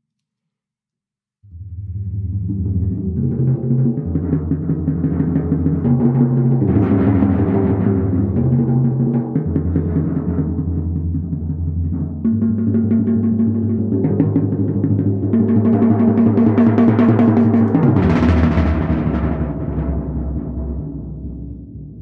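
Set of tom-toms played with soft felt mallets in fast strokes that blend into sustained rolls, the pitch shifting from drum to drum. It starts after about a second and a half of silence, swells to its loudest, then fades near the end.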